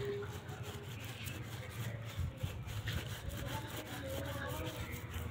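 Rolling pin rolling and rubbing over crumbly jaggery on a plate as it is pressed flat for gur barfi, a steady rough rubbing.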